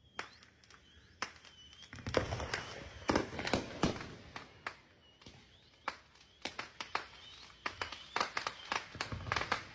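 Fireworks going off in rapid bangs and crackles, sparse at first, then a dense flurry from about two seconds in, a short lull around halfway, and another flurry near the end.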